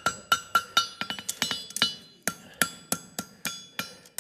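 Hammer blows on a hot steel horseshoe over an anvil, about three strikes a second with a ring after each and a quick run of lighter taps about a second in, shaping the jar calk drawn from the shoe's heel.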